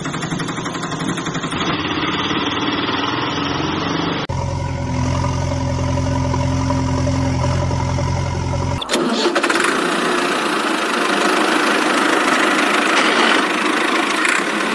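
Engine sound effects over toy-vehicle footage, changing abruptly at each cut: a fast-puttering small engine, then a steady deep engine drone from about four seconds in, then a rougher, noisier engine running from about nine seconds in.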